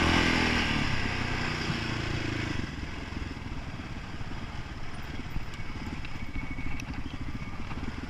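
Honda quad bike's engine running hard, then easing off with falling pitch in the first second; about two and a half seconds in it drops to a low, pulsing run at low revs, with a few light knocks near the end.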